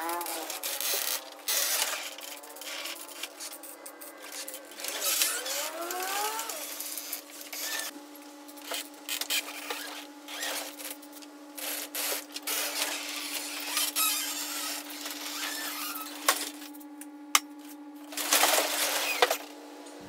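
Aerosol can of silicone spray lubricant hissing in repeated short bursts onto garage door rollers and hinges, with small clicks and knocks from handling in between.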